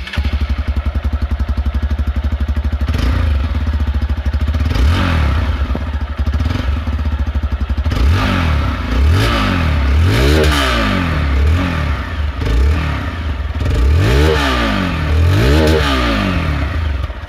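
Hero XPulse 200 BS6's single-cylinder, oil-cooled engine running at the silencer: it idles, then is blipped several times, the pitch rising and falling with each blip, the strongest blips coming in the second half.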